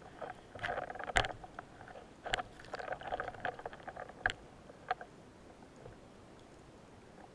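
Underwater clicks and knocks of a speargun and its gear being handled, with short noisy bursts in between; the loudest sharp knocks fall about one, two and four seconds in, and it goes quiet after about five seconds.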